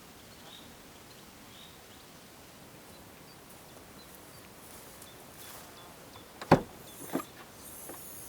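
Two sharp knocks, the first the loudest, followed by a fainter one, against quiet outdoor background with faint high chirps earlier on.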